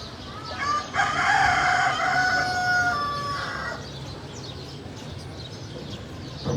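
A rooster crowing once: a single long call of about three seconds, held fairly level before it drops away.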